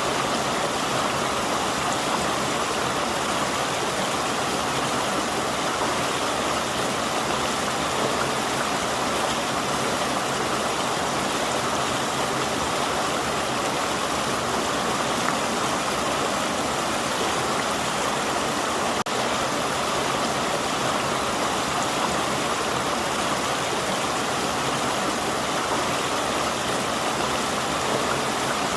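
River water flowing and rushing over its bed, a steady even wash of sound. There is a momentary dip in level about two-thirds of the way through.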